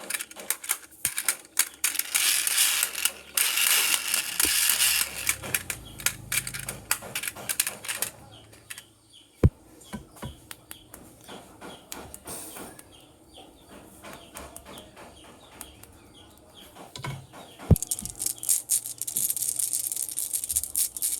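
Marbles rolling and clattering down a marble run track: dense rapid clicks and a rolling rattle in the first half, a quieter stretch broken by two sharp knocks, then busy clicking again near the end.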